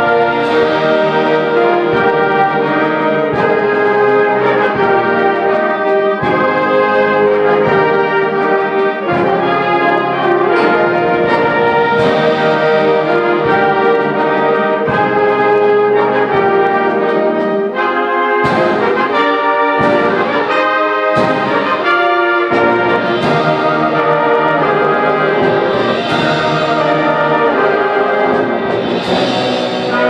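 High school symphonic wind band of woodwinds and brass playing a loud passage of held chords with accented attacks.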